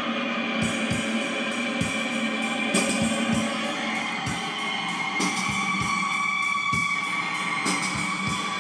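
Guitar-led music with a steady drum beat playing over a car's stereo.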